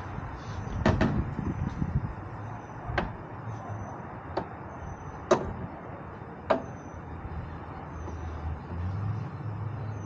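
Aluminum ladder-rack bar knocking and clicking against its mounts on the truck topper's roof as it is handled and lifted, about five sharp knocks a second or two apart, the loudest a little past halfway.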